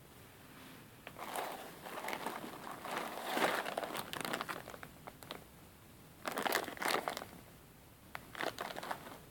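Clear plastic zip-lock bags crinkling as they are handled, in irregular bursts: starting about a second in and running for a few seconds, again around six seconds in, and briefly near the end.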